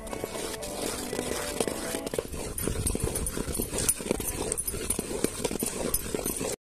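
Steel spoon scraping and knocking against the side of a metal pot while stirring thick gram-flour and sugar-syrup batter: an irregular clatter of clicks that grows denser about two seconds in and stops abruptly just before the end.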